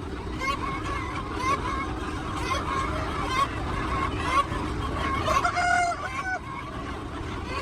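Chickens clucking, with many short calls throughout and one longer, drawn-out call about five and a half seconds in.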